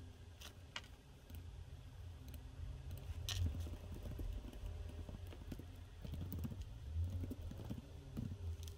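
Typing on a laptop keyboard: quick, irregular key clicks, with a few sharper taps standing out about half a second in and again a little after three seconds.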